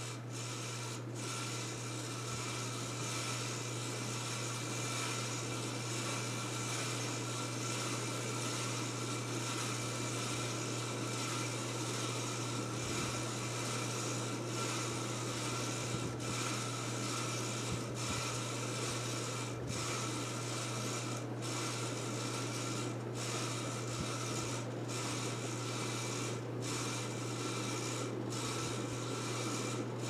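1984 Casablanca Panama ceiling fan running steadily at speed: a constant low motor hum under an even rush of air from the spinning blades.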